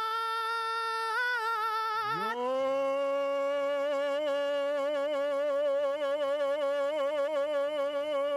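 Men singing a cappella into handheld microphones in a mock boy-band style. A single high falsetto note is held with wide vibrato. About two seconds in, a lower voice slides up into a harmony, and both notes are held long with vibrato.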